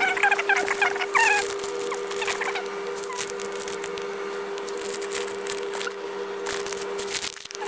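A steady electrical hum, with a quick flurry of short squeaky chirps in the first second and a half and a few more around two seconds in, over scattered light clicks and rustles.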